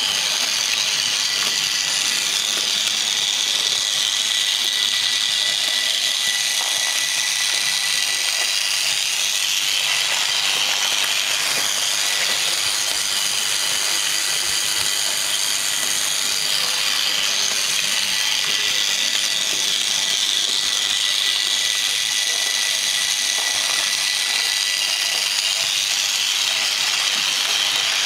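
Vintage Märklin SEF 800 model electric locomotive (SNCF BB 10001) running on its track with a train behind it. Its motor and gears whir and rattle steadily, with a thin steady whine through the noise. It is freshly overhauled and running smoothly.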